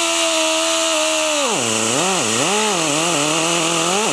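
Die grinder with a cutting burr running at speed in the port of a Norton cylinder head, then dipping and recovering in pitch several times as the burr bites into the port wall and trims metal from around the valve guide boss.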